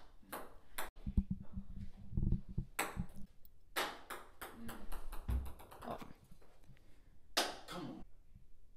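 Ping-pong balls bouncing on a table: scattered sharp clicks, with a quickening run of bounces about halfway through as one ball settles. A few low thuds come near the start.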